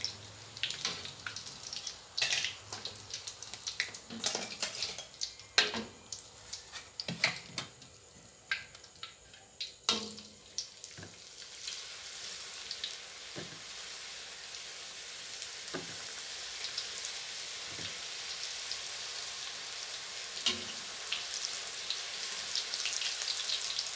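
Metal ladle and strainer clinking and scraping against a steel wok over hot oil. About eleven seconds in, a fresh batch of fish-tofu wontons goes into the oil and a steady deep-frying sizzle builds and continues, with a few more utensil knocks.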